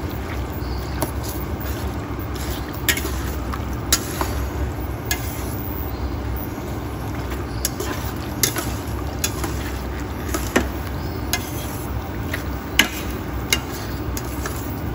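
A spatula scraping and clinking against the side of a stainless steel pot as chicken pieces in sauce are stirred, with irregular sharp knocks every second or so. A steady low rumble runs underneath.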